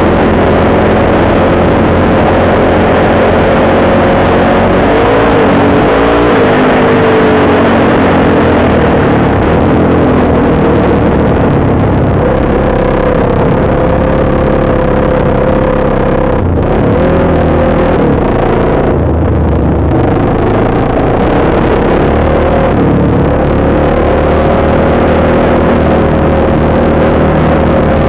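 Engine of the ridden off-road machine running steadily at riding speed, its pitch rising and dipping with the throttle a few times, under a constant rush of wind and road noise on a helmet-mounted microphone.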